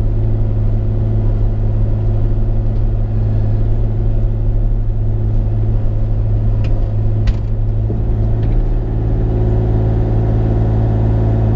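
Bobcat E35 mini excavator's diesel engine running steadily, with a couple of sharp knocks about seven seconds in and a slight shift in the engine note about eight seconds in.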